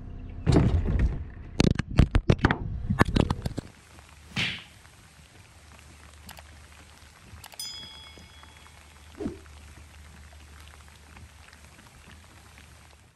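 A quick run of heavy, low thumps and knocks in the first few seconds. Then the faint, steady hiss of light rain falling on the water's surface.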